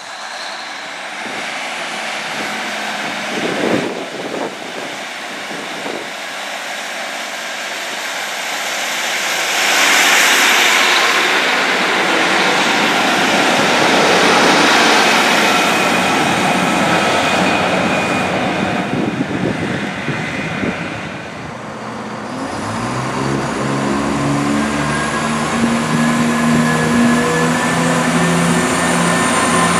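A Class 153 diesel multiple unit moves off and passes close by, with the wheels and diesel engine loudest as it goes past. About two-thirds of the way through, a Class 170 diesel multiple unit's engines take over, running with a deep throb whose pitch rises in steps.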